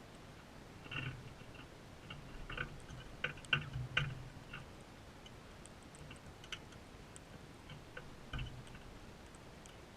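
Crimson rosellas feeding close to the camera: irregular clicks and taps of beaks pecking and cracking seed, busiest in the first half.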